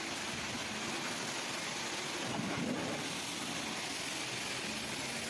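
Steady hiss of a car-wash pressure washer spraying water, with a brief swell about two and a half seconds in.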